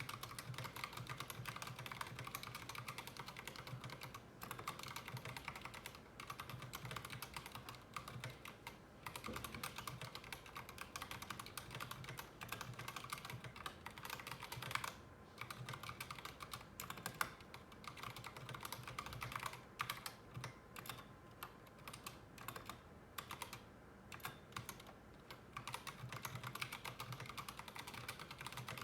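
Typing on a mechanical keyboard fitted with Durock T1 67g tactile switches: a fast, dense stream of key clacks with a couple of brief pauses.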